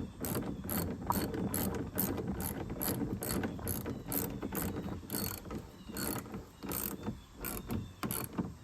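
Hand socket ratchet clicking steadily, about three clicks a second, as it works a fastener.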